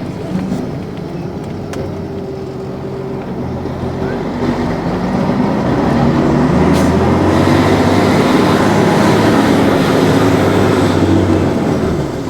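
Mercedes-Benz O-400 bus's OM 447 LA six-cylinder turbodiesel engine running under load, heard from inside the bus. It grows louder about four to six seconds in, holds steady, then eases off near the end.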